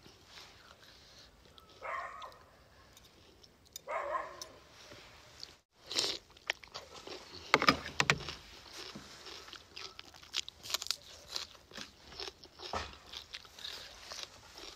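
Close-up eating sounds: crunching bites of a cucumber salad with squid and instant noodles, chewing, and a fork and spoon clicking against the tray. Two brief mouth sounds come about two and four seconds in, and the loudest crunch a little before eight seconds.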